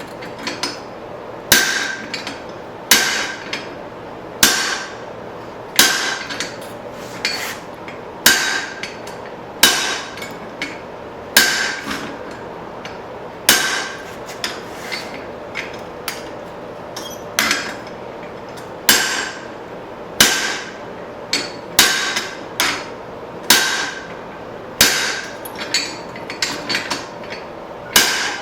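Hand hammer striking hot leaf-spring steel on an anvil in a steady forging rhythm: a heavy blow about every second and a half with lighter taps between, each with a brief metallic ring.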